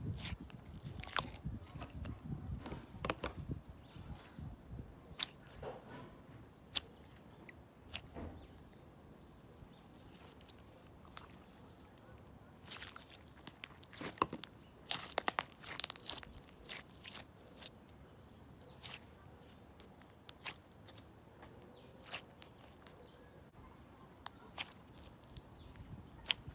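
Slime being squished and poked by hand, giving irregular small crackles, clicks and pops, with a busier cluster in the middle.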